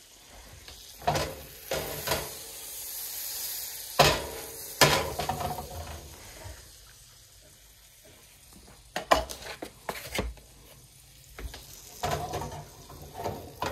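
Ground beef sizzling in a hot buttered frying pan, strongest in the first few seconds, with several sharp knocks and scrapes of a spatula against the pan.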